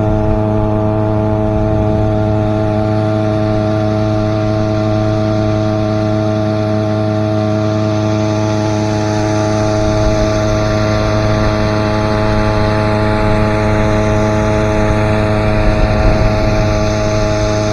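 Boat motor running at a steady speed, with a constant engine pitch under a rushing hiss that grows louder in the second half.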